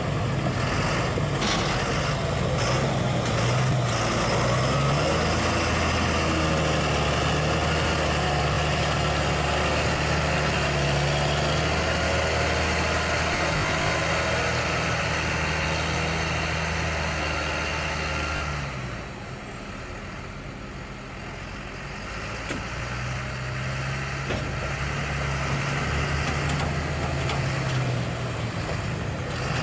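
Fendt tractor's diesel engine running under load as the tractor drives back and forth over a silage pile to pack it down, its pitch stepping up and down. The engine goes quieter for a few seconds about two-thirds of the way through, then picks up again.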